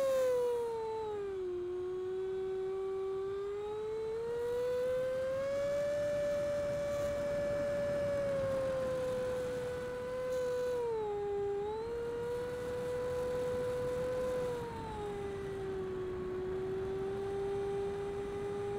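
The 80mm electric ducted fan of a Freewing Avanti RC jet whining, its single pitch sliding with throttle. It drops about a second in, climbs back over the next few seconds, dips briefly just past the middle, and settles lower for the last few seconds. A faint hiss of airflow runs underneath.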